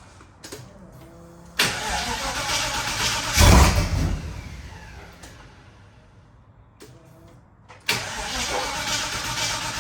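Holden V8 being started after a rebuild: cranked on the starter about a second and a half in, firing with a short loud burst and then dying away, then cranked again near the end.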